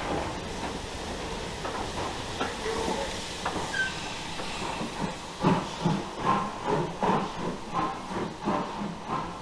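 Steam locomotive with steam hissing, then a regular beat of about three a second that starts about five and a half seconds in, as the train gets moving.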